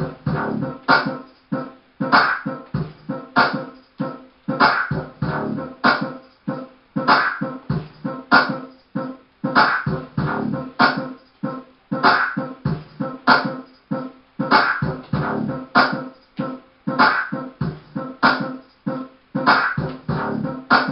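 Music with a strong, steady beat, accents falling about every second and a quarter with lighter beats between.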